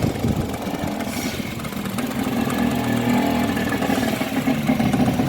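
2010 Honda Fit's engine running and being sped up a little, getting louder from about two seconds in. Over it is the noise of a belt tensioner worn inside, the sign of a failing tensioner pulley.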